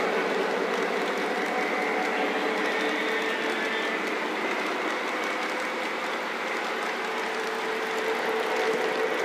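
Model train cars rolling past close by on O-gauge three-rail track: a steady metallic rolling clatter of wheels on the rails, with a faint steady hum underneath.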